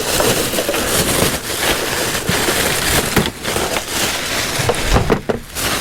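Close, continuous crinkling and crackling as packaging from the fan's box is handled and rummaged through.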